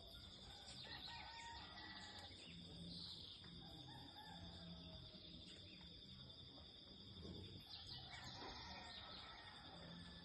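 Faint bird calls, some drawn out and falling in pitch, over a steady high-pitched insect drone.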